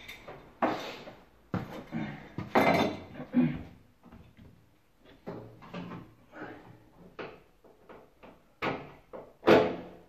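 Irregular knocks and clatter of hard objects being handled against a washing machine's cabinet, with lighter clicks in the middle and two sharp knocks near the end.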